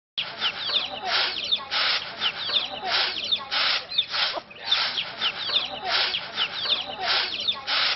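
Rice being winnowed on a flat winnowing tray: the grain swishes in short pairs of tosses about every two seconds. Chickens cluck and chirp throughout.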